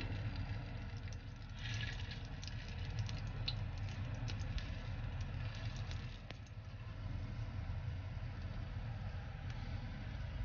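Hot dogs sizzling in oil in a small rectangular tamagoyaki pan, with crackles and pops densest in the first half that thin out later. A steady low hum runs underneath.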